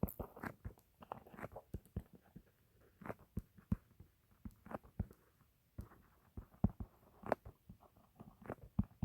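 Pen writing: irregular light taps and clicks, a few a second.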